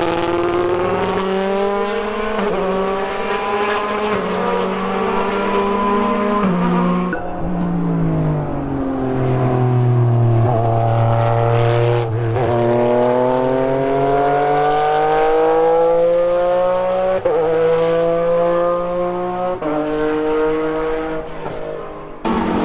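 Racing-car engines at high revs as the cars run through corners. The note first climbs and drops in steps through a run of quick upshifts, falls away as the car slows and shifts down, then rises steadily under hard acceleration, with two more upshifts.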